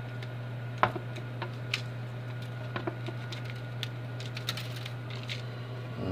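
Seasoning being sprinkled onto raw chicken thighs in a disposable aluminium foil pan: scattered light ticks and taps, with a sharper click a little under a second in. A steady low hum runs underneath.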